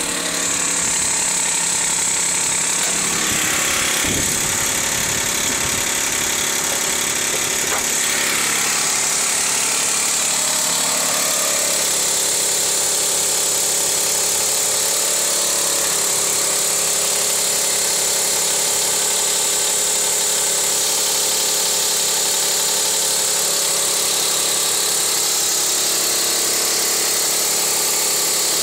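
2004 Dodge Stratus R/T's 3.0 L V6 engine idling just after a cold start, its idle settling lower about ten seconds in. Under the running is a clicking that comes only on a cold start and that the owner takes to be from the belt area.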